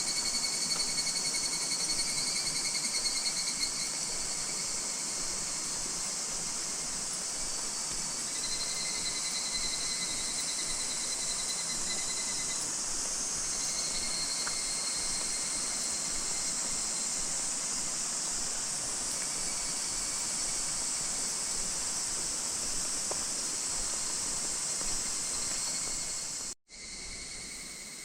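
Higurashi (evening cicadas) calling in a chorus: overlapping pulsing phrases a few seconds long, one after another, over a steady high insect hiss. The sound cuts out for a moment near the end and comes back quieter.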